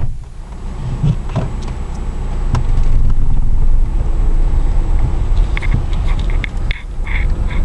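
Toyota Camry driving slowly, heard from inside the cabin as a low engine and road rumble that grows louder about two to three seconds in, with a few light knocks.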